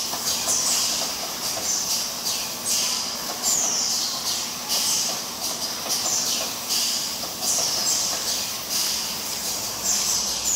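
Automatic jar filling and capping line running, with sharp hisses of compressed air about once a second over a low machine hum.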